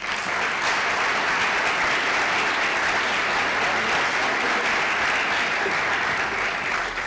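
Audience applauding, starting suddenly and holding steady at a strong level.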